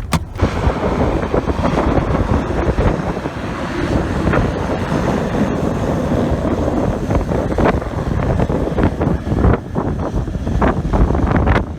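Heavy wind buffeting the microphone: loud, gusty rumbling noise that swells and dips.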